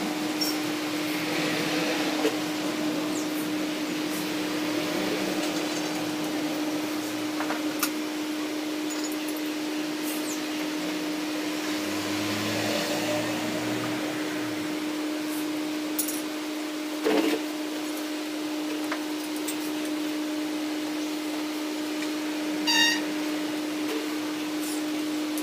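A steady machine hum holding one constant tone throughout, with scattered light clicks and clinks of small metal engine parts being handled and fitted into a motorcycle crankcase by hand. A louder knock comes about two thirds of the way through, and a short ringing metallic clink near the end.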